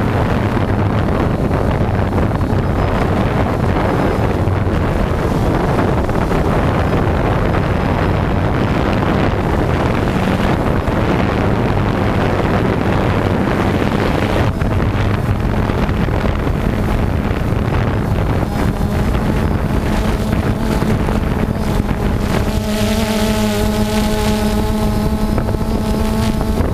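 DJI Phantom 2 quadcopter's four electric motors and propellers buzzing steadily in flight, picked up close by its onboard camera, with wind noise on the microphone. Near the end the buzz settles into a clearer steady tone with several pitches.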